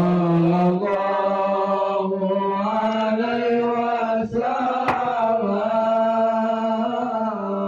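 A man's voice chanting a slow devotional melody in long held notes, the pitch stepping up and down, with a short breath about halfway through. The phrase dies away near the end.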